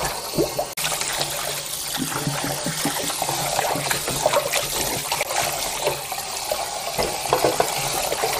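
Kitchen tap running into a stainless-steel bowl of raw pork ribs, with irregular splashing as gloved hands rub and turn the ribs under the stream to wash off bone fragments.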